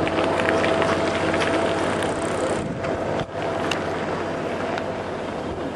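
An engine running steadily, a continuous hum with a noisy outdoor background, dipping briefly about three seconds in.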